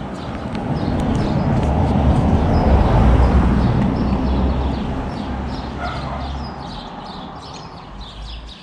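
A car driving past on the street, its engine and tyre noise swelling to a peak about three seconds in and then slowly fading away.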